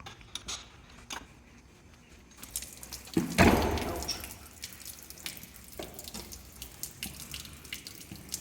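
A few small clicks as the boat's hull drain plug is worked loose, then water pours out of the drain hole, with a loud surge about three seconds in and steady running after it: the bilge emptying for winter storage.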